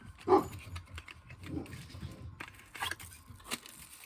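Hands handling and opening a small boxed item, with a few sharp clicks and taps and some soft rustling.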